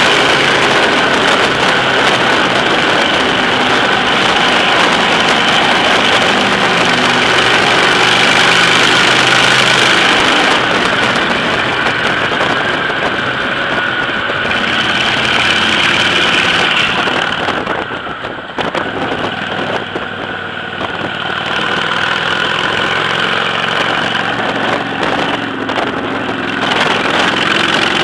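Cruiser motorcycle's engine running steadily as the bike rides through a road tunnel, the sound dipping briefly about two-thirds of the way through before picking up again.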